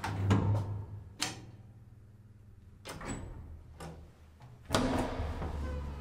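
Elevator call button pressed, followed by clicks and knocks from the elevator's landing-door and lock mechanism. A louder knock comes near the start and another near the end, each followed by a low hum.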